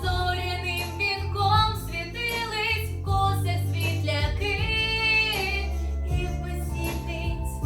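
A teenage girl singing a pop song solo over an instrumental backing track with a steady bass line, holding one long note about halfway through.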